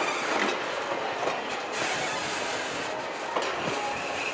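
Steel wheels and trucks of slowly passing railroad coaches rolling on the rails, with irregular clicks and knocks. A thin high wheel squeal comes in near the end.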